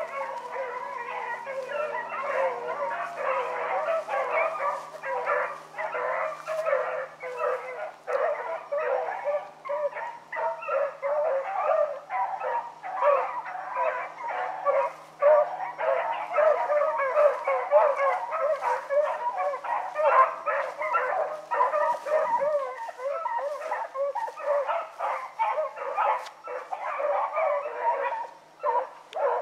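A pack of rabbit hounds baying without a break as they run a rabbit's track. Many voices overlap in a dense run of short yelps and bawls.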